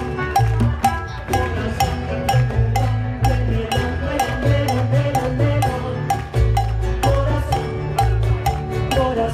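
Live mariachi band playing an instrumental passage between sung verses: rhythmic strummed guitars and harp over a deep bass line, with held melody notes above.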